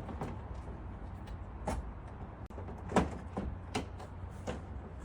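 A handful of separate knocks and clunks, about five spaced through the few seconds, over a steady low hum; the loudest comes about three seconds in.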